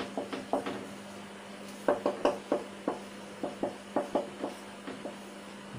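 Marker pen writing on a whiteboard: irregular runs of short taps and clicks as the tip meets and leaves the board, with pauses between letters.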